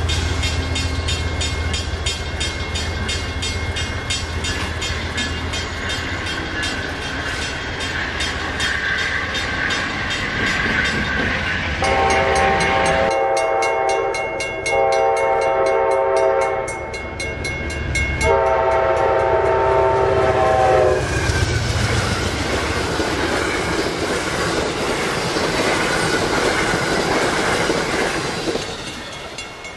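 Amtrak passenger train pulling away with a steady low rumble, then its horn sounding three long chord-like blasts from about twelve seconds in, followed by the rolling noise of the train, which drops near the end.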